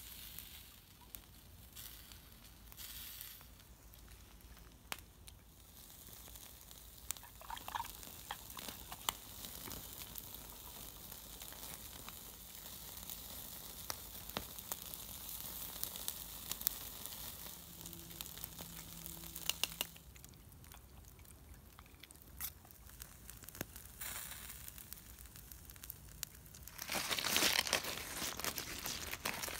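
Chicken thighs sizzling on a small grill over a wood campfire, a steady hiss with scattered crackles and pops from the fire. Near the end comes a louder, rougher rustling noise.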